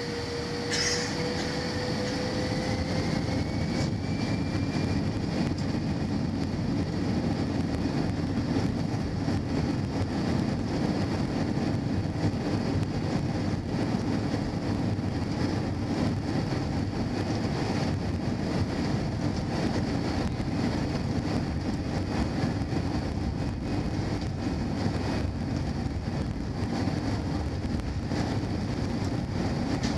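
Airliner cabin noise from the jet engines and airflow: a steady rush, with an engine whine that rises over the first few seconds and then holds level.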